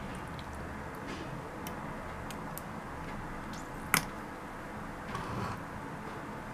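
Wire clasp of a clip-top glass jar snapping shut with one sharp click about four seconds in, after a few faint ticks of the glass lid and wire being handled, over a steady background hiss. A short scuff follows about a second later.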